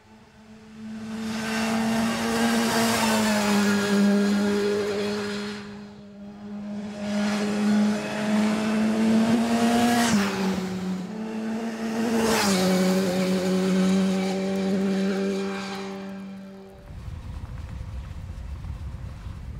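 BMW S 1000 R's inline-four engine running at a steady, high speed, growing louder and fading away three times, with a slight drop in pitch each time. About 17 seconds in it gives way to a steady hiss of wind.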